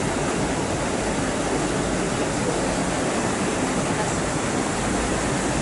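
Steady rushing, churning water from a passing lake paddle steamer's paddle wheels.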